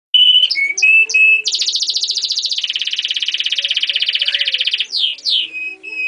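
German crested canary singing: a few short whistled notes, then a long rapid trill lasting about three seconds that steps down to a lower pitch partway through, ending in two quick falling whistles.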